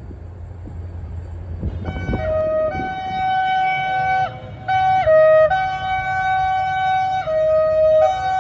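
Low rumble of a train on the rails for the first two seconds. Then a diesel locomotive's two-tone air horn sounds over and over, switching between a higher and a lower note, held long, with one brief break midway.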